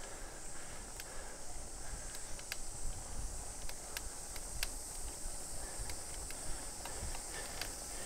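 Steady, high-pitched buzzing of a cicada chorus over low wind and road rumble from a moving bicycle, with a few faint clicks.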